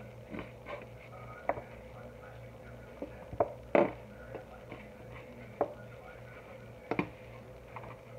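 Plastic squeeze bottle of Parkay liquid margarine being shaken and squeezed: a scattering of short clicks and taps at uneven intervals, over a steady low hum.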